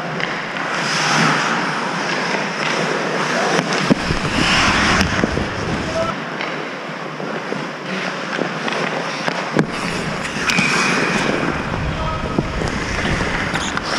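Ice hockey play around the goal: skates scraping and carving the ice, with sharp cracks from sticks and the puck, the loudest about four seconds in and again near ten seconds.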